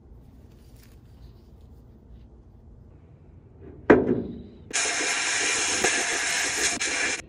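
Abrasive blast gun in a sandblasting cabinet hissing steadily as it strips rust from an old hatchet head. It starts about two-thirds of the way in, just after a single thump, and follows a few seconds of quiet.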